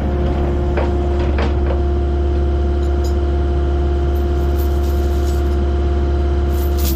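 A vehicle engine running steadily, with a strong low hum and a constant whine. A couple of faint clicks come about a second in.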